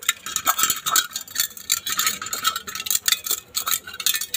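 A hand stirring and rubbing a few grains around a small stainless steel bowl: a fast, irregular run of metallic scraping and clinking.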